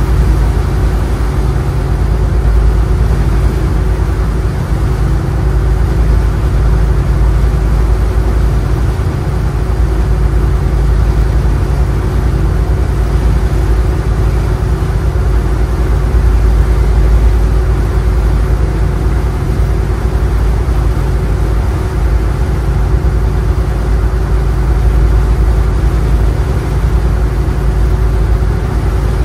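Power boat engine running steadily, strongest in the low end, with a steady hum and no change in speed.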